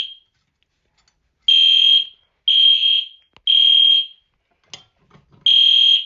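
Fire alarm horn sounding the temporal-three evacuation signal: three half-second high-pitched beeps a second apart, a pause, then the next group beginning near the end. The system is in alarm after a manual pull station was activated.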